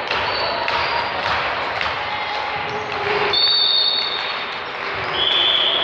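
Indoor volleyball being played on a wooden court in a large echoing hall: sharp ball hits, short squeaks of players' shoes on the floor, and voices from players and spectators.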